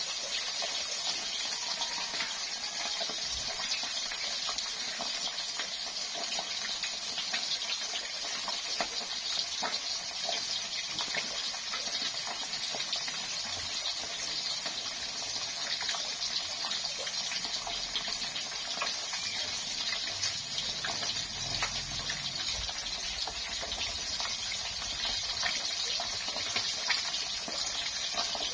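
Catfish deep-frying in a wok of hot oil: a steady sizzle with many small crackles and pops.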